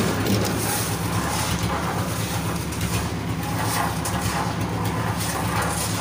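Concrete mixer machine's engine running steadily with a low, even hum.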